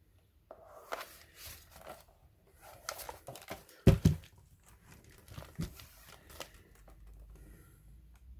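Hands handling a plastic laptop body: rustling, scattered clicks and scrapes, with one loud knock about four seconds in.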